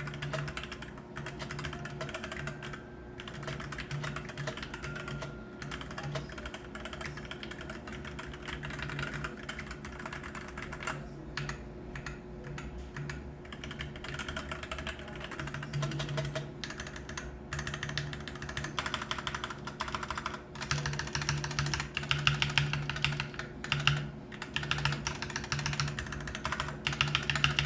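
MUCAI MKA610B 60% mechanical keyboard with red linear switches being typed on, a steady run of fast key clicks that grows denser and louder from about halfway through.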